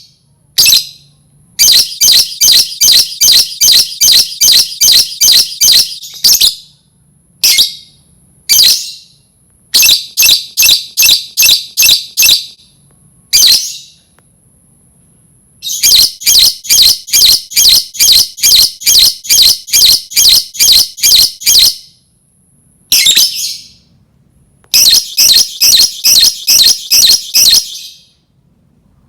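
Lovebird ngekek: long runs of rapid, shrill, evenly repeated chattering calls, about four a second, in four bouts separated by short pauses with a few single calls between them.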